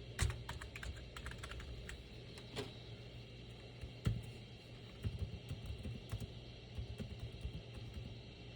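Typing on a computer keyboard: irregular, quick key clicks in small runs, over a steady low hum.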